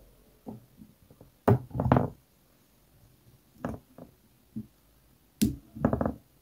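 Side cutters snipping wire component leads: two sharp snips about four seconds apart, each followed by a short run of duller knocks, with a few fainter clicks between.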